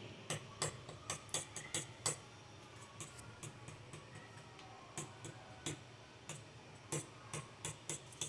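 A metal fork pricking rolled-out papdi dough rounds on a marble counter: light, irregular clicks and taps as the tines go through the dough onto the stone. They come in two clusters with a quieter gap in the middle. The holes are docked so the papdi fry flat instead of puffing up like puris.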